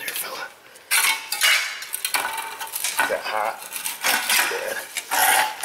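Rust-thinned sheet-metal heat shield on an exhaust pipe being bent and torn off by hand: repeated metallic scraping, crunching and clattering.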